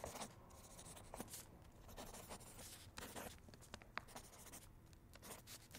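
Pen scratching on paper in quick, irregular drawing strokes, faint, with a few short sharp ticks.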